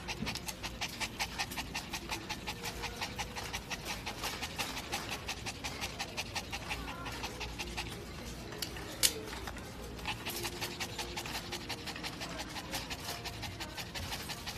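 Yorkshire terrier panting rapidly and steadily, about four breaths a second, with one sharp click about nine seconds in.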